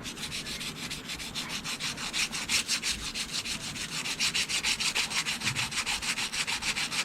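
320-grit sandpaper rubbed by hand back and forth along the edges of a metal milling vise, knocking off the sharp burrs. A rapid, even scratching of several strokes a second.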